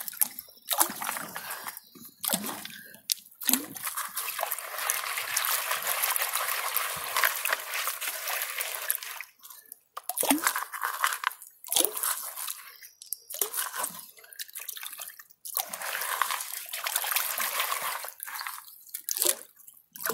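A blue plastic gold pan being shaken and swirled under shallow creek water to wash out clay-rich dirt. The water sloshes and splashes in spells, broken by several brief pauses.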